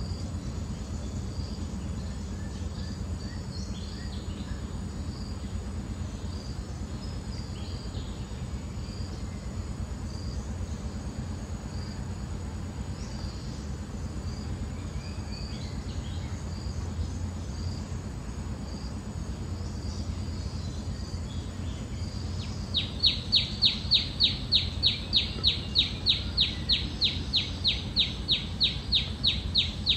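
Forest ambience: a steady low rumble, a thin steady high whine and scattered faint chirps. About three-quarters of the way in, the whine stops and a loud, regular chirping starts, about three chirps a second.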